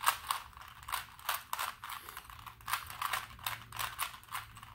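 Two Rubik's Cubes being scrambled by hand: quick twists of the plastic layers making a rapid, irregular clicking.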